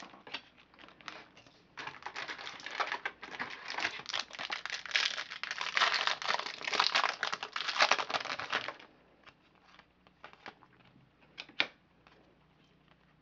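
A trading-card pack wrapper being torn open and crinkled for several seconds, followed by a few scattered light clicks and rustles of cards being handled.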